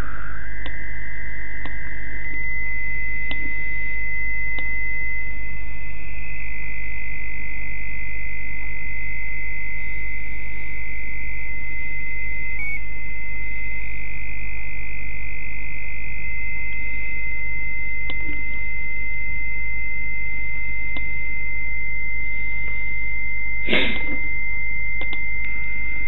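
Radio receiver audio from a software-defined radio tuned to a carrier signal: a steady high whistle over hiss and a constant low hum, with a short click near the end.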